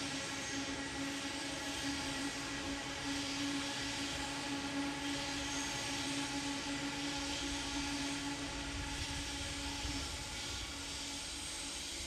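Electric trains running in a rail yard: a steady droning hum with one strong low tone over a low rumble, the tone fading out about ten seconds in.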